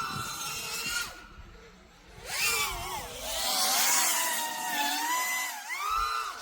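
A 5-inch FPV quadcopter's brushless motors are whining under changing throttle during freestyle flying. The pitch rises and falls: they back off about a second in, punch up again after about two seconds, dip briefly near the end and rise again.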